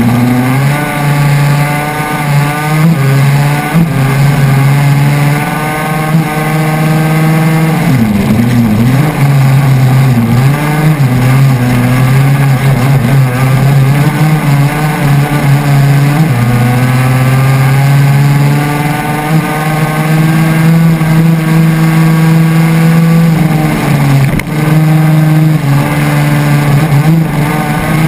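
KTM 250 SX two-stroke single-cylinder engine of a 250 cc crosskart at racing speed, heard from onboard the kart. Its pitch rises and falls with the throttle, with a deep dip about eight seconds in and another near the end.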